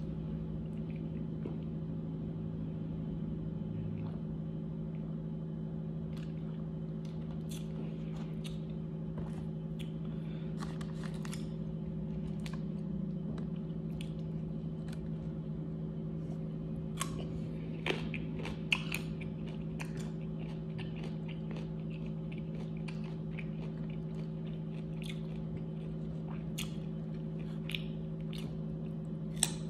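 A person eating chicken wings: chewing and biting, with many small wet mouth clicks and a few sharper bites a little past halfway and at the end, over a steady low hum.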